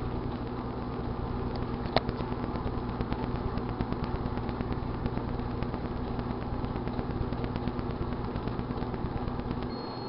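GE dual wave microwave oven running with a steady hum while a split grape arcs inside, giving light crackling ticks and one sharp pop about two seconds in. Near the end the hum stops and a steady high beep sounds.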